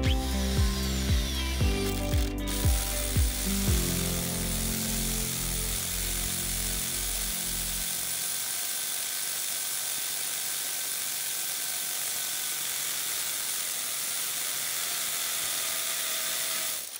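A hammer drill and a rotary hammer drilling into a concrete foundation wall, giving a steady, even hammering noise from about two and a half seconds in. Closing music with a beat fades out under it over the first several seconds.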